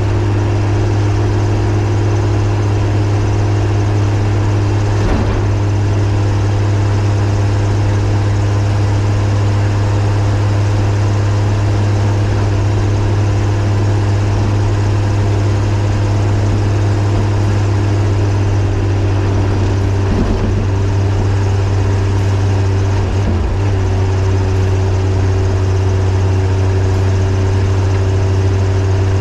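A 1941 Chevrolet truck driving at a steady road speed: the engine drones steadily, mixed with road noise, with a few brief knocks along the way.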